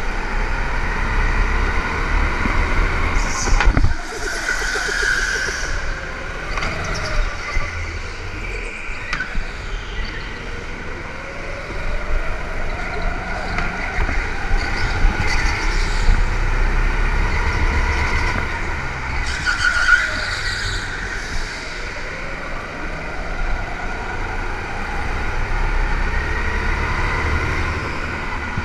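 Go-kart engine running at full tilt, its pitch rising and falling again and again as it speeds up and slows for the corners, over a heavy low rumble.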